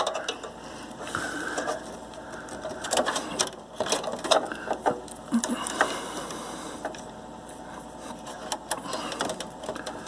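Computer cables being handled inside a desktop case: plastic power and SATA connectors pushed onto a hard drive, giving scattered clicks and rustling.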